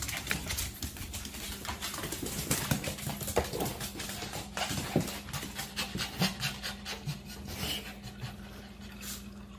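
Small dog panting rapidly in quick short breaths, with a low steady hum beneath.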